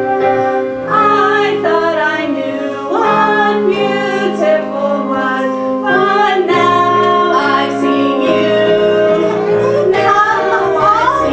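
A female voice singing a musical-theatre song over instrumental accompaniment, the melody moving between held notes with vibrato on the longer ones.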